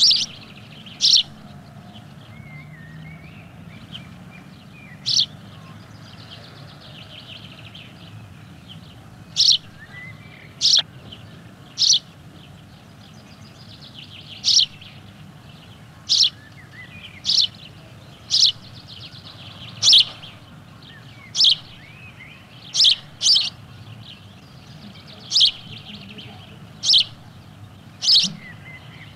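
Male house sparrow chirping: single short chirps repeated irregularly, roughly one every one to two seconds, over fainter bird twittering behind.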